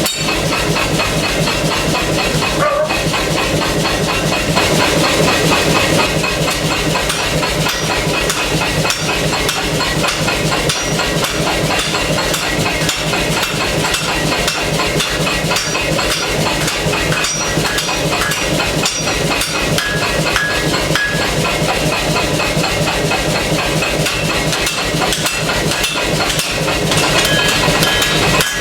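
Air hammer pounding hot steel in a fast, even stream of blows that never stops, forging a knife blade.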